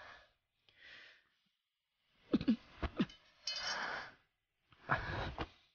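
A man's pained breathing: a few faint breaths, then louder gasps and groans in short bursts from about halfway, as he doubles over hurt.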